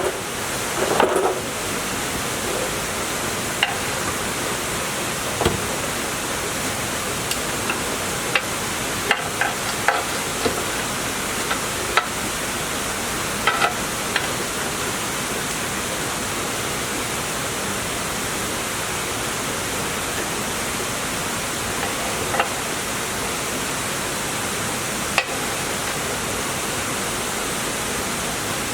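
A steady hiss, with scattered short clicks and taps that come mostly in the first half.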